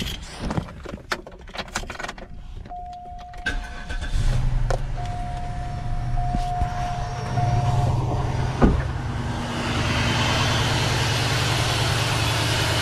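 Cadillac Northstar 32-valve V8 started from cold about four seconds in, then running at a steady idle. A steady high tone sounds for a few seconds as it starts, with clicks before and a single clunk a little later.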